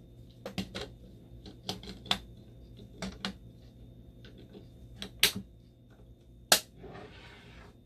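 Sharp clicks and taps of plastic and metal parts, about a dozen scattered over the seconds with the two loudest near the end, as a dialysis blood pump's roller rotor is fitted onto its motor shaft and the clear pump cover is handled. A faint steady hum runs underneath.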